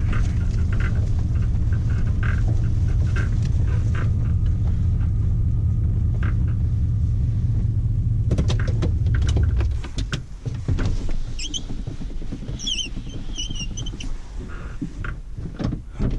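Truck engine running with a steady low rumble as the truck turns around, then shut off about ten seconds in. Afterwards come scattered clicks and knocks and a few short high chirps.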